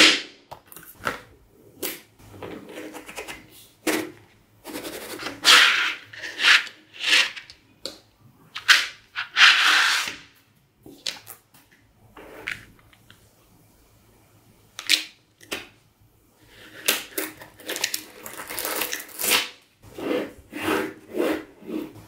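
Magnetic balls clicking and snapping together in sharp, irregular clacks, mixed with short bursts of scraping and rustling as paper and panels of balls are moved about.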